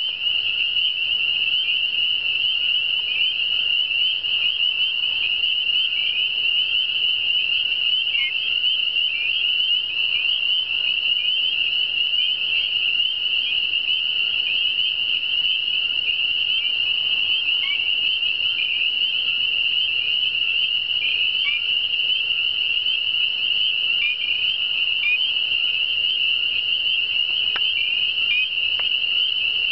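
Dense breeding chorus of spring peepers (Pseudacris crucifer): many males calling at once, their short, rising, high-pitched peeps overlapping into a continuous ringing din.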